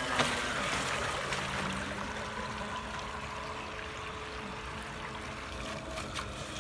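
Water lapping and trickling, with a faint steady hum from the model boat's electric motor out on the water.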